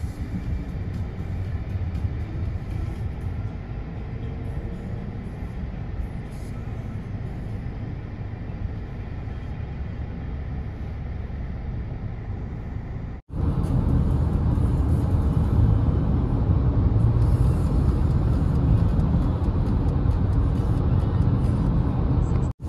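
Car on the road: steady low road and engine noise. It cuts out for an instant about 13 seconds in and is louder afterwards.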